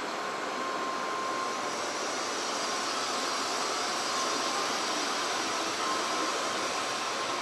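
N700S Supreme shinkansen pulling out of the platform: a steady rush of running and air noise, with a faint steady whine that comes and goes and a slight swell midway as the cars slide past.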